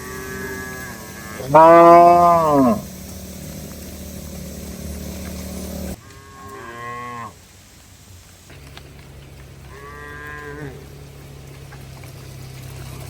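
Cattle mooing: four separate calls, the loudest and longest about a second and a half in, the others fainter.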